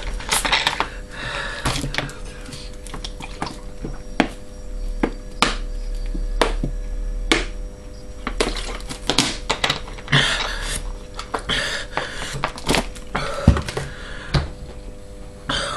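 Thin plastic water bottle crackling and clicking as it is handled, squeezed and drunk from, in many irregular sharp crackles.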